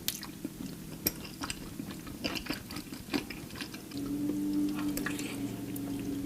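Close-miked wet chewing of creamy Alfredo pasta, with many short moist clicks and smacks. A steady low hum comes in about four seconds in and carries on.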